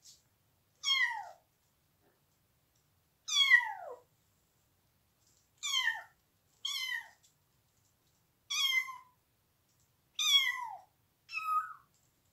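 Young kitten (about 400 g) meowing: seven loud, separate meows, each falling in pitch, spaced irregularly about one to two seconds apart. They are typical of a kitten seemingly crying for its mother.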